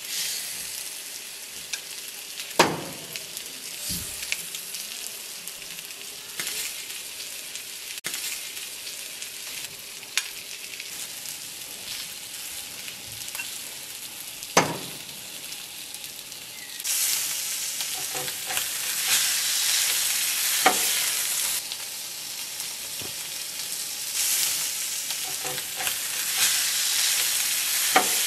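Shrimp and fish frying in a pan, a steady sizzle that grows louder about two-thirds of the way through. Occasional sharp clinks and knocks come from a utensil working the pan, two of them loud.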